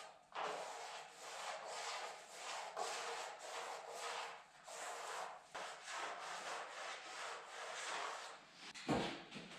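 Repeated back-and-forth rubbing strokes of a hand tool on the workpiece, somewhat under two strokes a second, with a single knock near the end.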